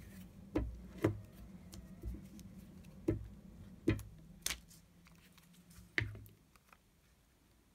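Paper scraps being handled and pressed down onto a book page on a tabletop: about seven light, irregular taps and knocks with soft paper rustle between them.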